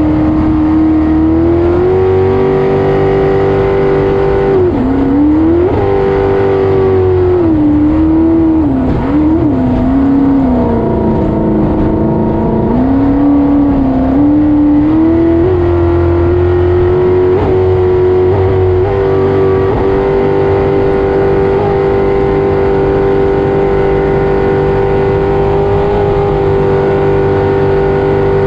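Race jet boat's engine running hard at high revs, heard from on board. Its pitch dips and wavers for several seconds in the middle, then holds steady.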